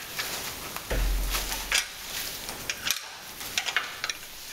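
Box wrench clicking against the nuts of an outboard's jet pump cup as they are loosened, with scattered light metallic clicks. A low rumble comes about a second in.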